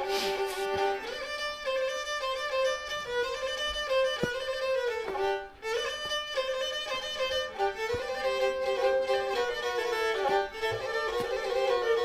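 Background music: a Black Sea kemençe, the small bowed fiddle, playing a melody of held notes, with a short break about halfway through.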